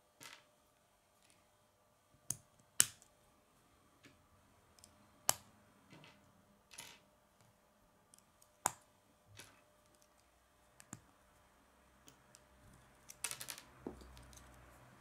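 K'nex plastic rods and connectors clicking and snapping together as pieces are fitted by hand: scattered sharp clicks every second or two, with a quick run of clicks near the end.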